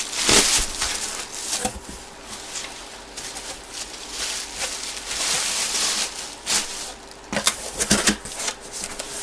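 Packaging being handled: repeated rustling and crinkling, with a few sharper clicks and knocks about three-quarters of the way in, over a faint steady hum.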